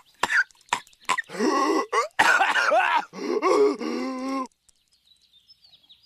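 A voice making short coughing, grunting sounds, then drawn-out groaning noises that stop about four and a half seconds in.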